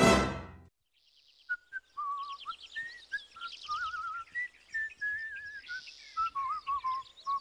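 A music sting ends on a loud held chord right at the start. After a brief silence, cartoon birdsong chirps over a gentle whistled tune.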